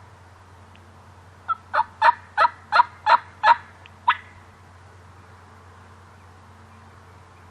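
A series of eight turkey yelps, about three a second, quieter at first, loudest in the middle, with the last one after a short gap.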